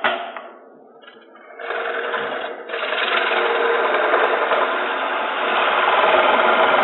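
Turning tool cutting a spinning wooden hat blank on a lathe: a steady, rough cutting noise that starts about a second and a half in, after a few knocks and a brief lull.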